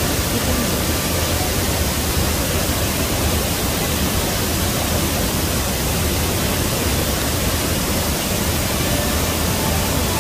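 A wide waterfall pouring over a rock ledge and crashing into the pool below: a steady, unbroken rushing noise with a deep low rumble.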